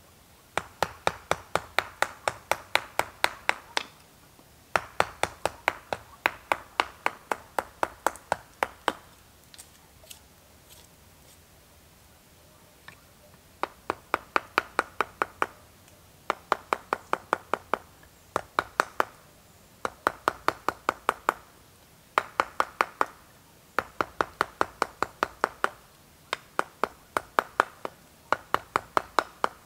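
Wooden mallet striking a carving gouge into a split log: quick, sharp knocks about three to four a second, in runs of a few seconds, with a pause of several seconds about a third of the way in.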